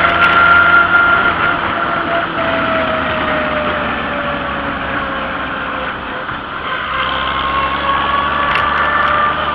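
Vintage farm tractor engine running under way on the road, heard close up; its pitch sags slowly and then climbs again for the last few seconds.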